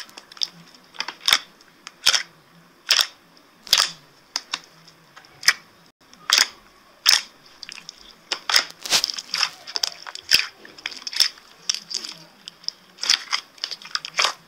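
Green slime being squeezed and poked by fingers: irregular sharp clicks and pops, one or two a second, over a faint steady hiss.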